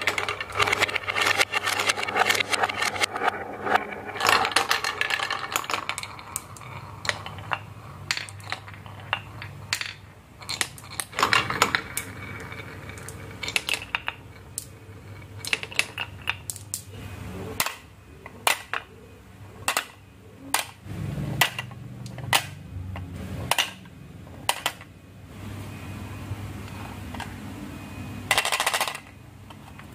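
Marbles clattering along a HABA marble run track: a dense stream of quick clacks for the first several seconds, then scattered single clicks and knocks, with a low rolling rumble at times.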